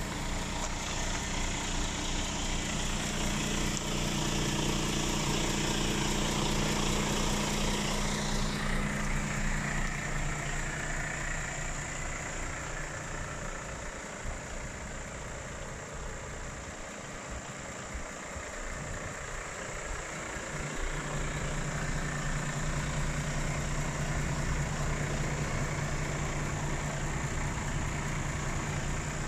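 Diesel engine of an Iveco Stralis 460 Euro 6 tractor unit idling steadily with a low hum; a higher hiss drops away about eight seconds in, and the hum grows fainter and uneven for a while in the middle before steadying again.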